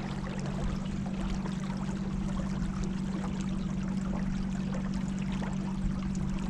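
River water trickling and lapping around a kayak on the move, with a steady low hum underneath.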